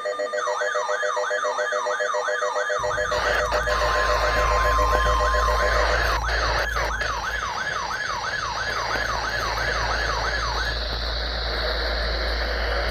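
Electronic siren yelping, a fast up-and-down wail repeating about three times a second, which stops about eleven seconds in. A low hum comes in about three seconds in.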